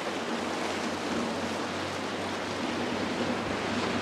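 Rough surf and breaking waves washing steadily, with wind on the microphone, and a faint steady low hum underneath.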